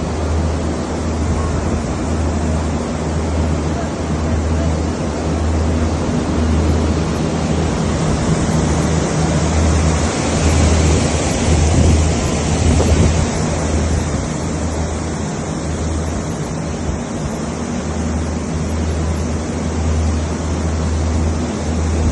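Fiberglass cooling tower running: a steady rush of water falling through the tower, with a low fan hum that throbs about once every second and a half.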